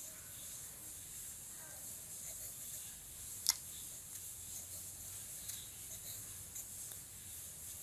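Pencil scratching faintly on notebook paper while writing figures, over a steady hiss, with one sharp click about three and a half seconds in.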